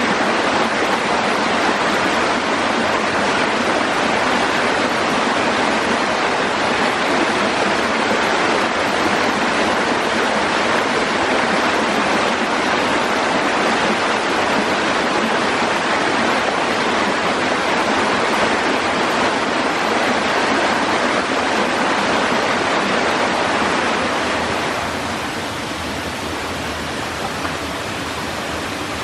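Rushing stream water, a steady rush that drops to a quieter, softer rush near the end.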